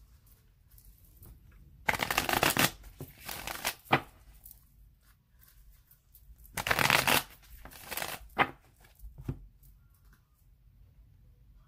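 A tarot deck being shuffled by hand in two loud bursts about four seconds apart, with a few sharp taps of the cards after each.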